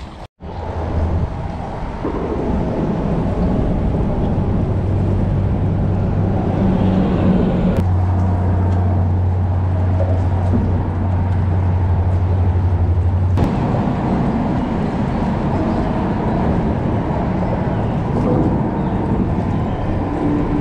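Steady low rumble of road traffic on the bridge overhead. A deeper engine hum is strongest for about five seconds in the middle and cuts off suddenly.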